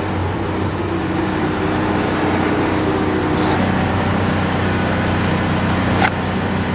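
An engine running steadily at a constant speed, a low even hum, with one sharp click about six seconds in.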